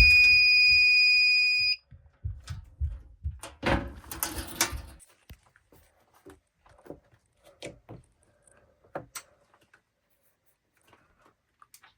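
Fire alarm speaker's steady high-pitched alert tone, cutting off suddenly about two seconds in as the alarm is reset. Then low thumps, scattered clicks and a brief rustle about four seconds in.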